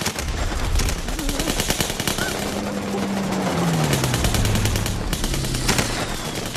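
Battle-scene gunfire: rapid, continuous rifle and machine-gun fire. Under it a low hum drops in pitch about midway through.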